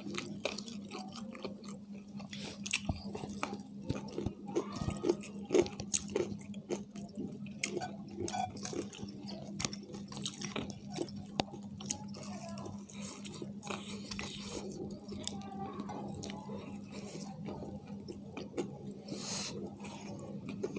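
People chewing and biting into fried chicken: irregular crunches, crackles and wet mouth clicks, scattered throughout. A steady low hum runs underneath.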